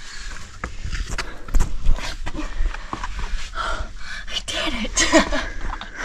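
A woman breathing hard and gasping as she squeezes up through a narrow sandstone crack, breaking into laughter near the end, with short knocks and scuffs against the rock.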